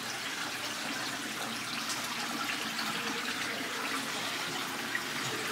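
Steady rush of running water from an artificial stream in a museum exhibit.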